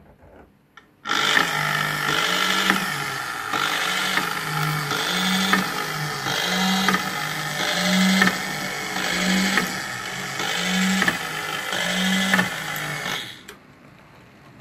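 HO-scale model railway turntable's electric drive running as the bridge swings round, a geared whirring that starts about a second in and stops shortly before the end. It pulses between two notes with a light click about every three-quarters of a second.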